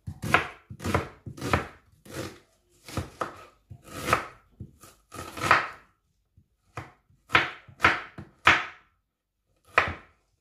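Kitchen knife slicing an onion on a wooden cutting board: about a dozen irregular cuts, each ending in a knock of the blade on the board, with a short pause a little past halfway.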